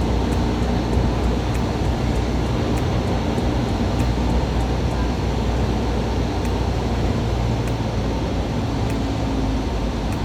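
Cessna 172 light aircraft's piston engine and propeller droning steadily, heard from inside the cabin.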